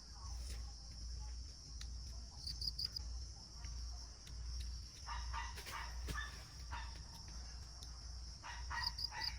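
Jungle insects droning steadily at a high pitch, with short chirps in threes. About five seconds in, and again near the end, a run of short, lower animal calls sounds over the insects.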